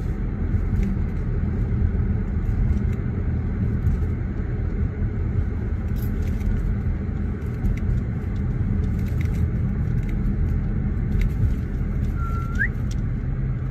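Steady low road and engine noise of a moving car, heard from inside the cabin, with a few faint ticks.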